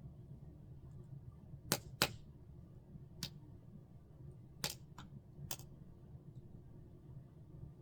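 Campfire wood popping and crackling: six sharp, irregular pops, two close together about two seconds in and three more near the middle, over a steady low background noise.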